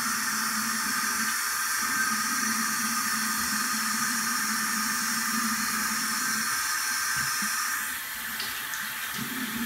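Tap water running steadily into a sink, easing a little about eight seconds in.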